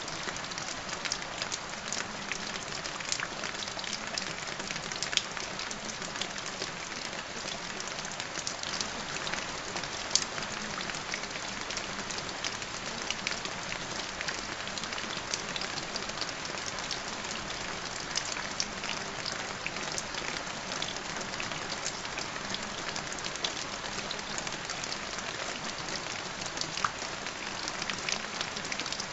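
Steady rain falling on a surface: an even hiss scattered with many small, sharp drop ticks.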